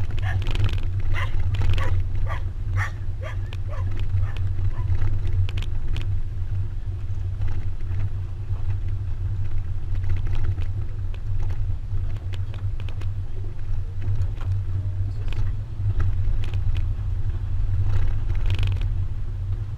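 Steady low rumble of wind buffeting the microphone and the pickup truck running along the road, heard from the open truck bed. A few short, higher sounds break through in the first three seconds and again near the end.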